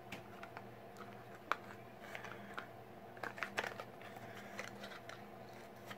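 Faint scattered clicks and taps from handling a small glass nail polish bottle, over a low steady hum.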